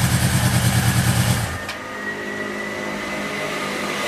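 Suzuki GS750G air-cooled inline-four engine running with a steady, pulsing note, which the seller reports free of abnormal noises; it shuts off sharply about a second and a half in, with a click. A fainter steady hum and a thin whine go on after it.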